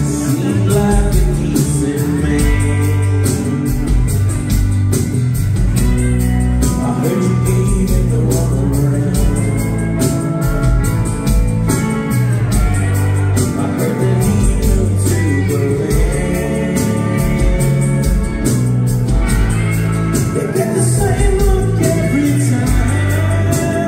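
Rock band playing live on electric and acoustic guitars, bass and drums, with a sung voice over the steady beat, heard from the crowd.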